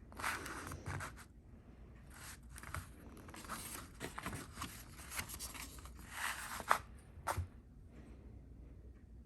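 Paper pages of an instruction manual being handled and turned, rustling and scraping in short irregular bursts.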